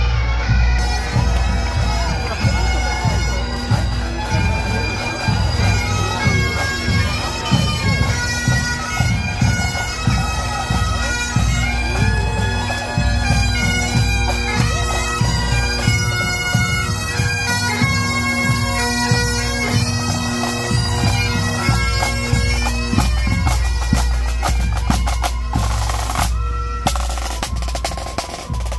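Pipe band playing as it marches: Great Highland bagpipes sounding a steady drone under the melody, with drums beating. Near the end the pipes stop and the drums carry on.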